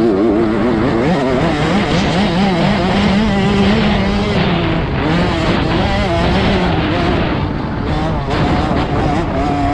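65cc two-stroke motocross bike engine revving hard under race load, heard from an onboard camera. Its pitch rises and falls repeatedly as the throttle and gears are worked, with wind rushing over the microphone.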